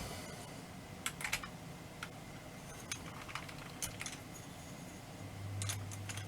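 Small, irregular metallic clicks and taps of small clock parts and a nut being handled and fitted during clock reassembly. A steady low hum comes in near the end.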